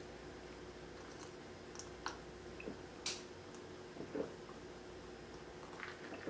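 Drinking from a plastic cup: a few soft sips, lip and cup clicks, and swallows, spaced a second or so apart, over a faint steady hum.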